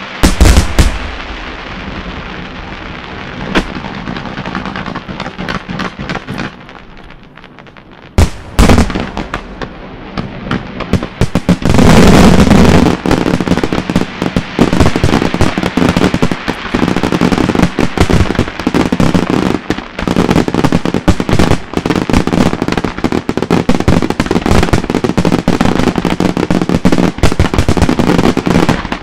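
Italian-style aerial fireworks display: shells bursting with loud bangs, one right at the start and a cluster about eight seconds in. From about eleven seconds in it builds into a dense, continuous barrage of rapid bangs and crackle.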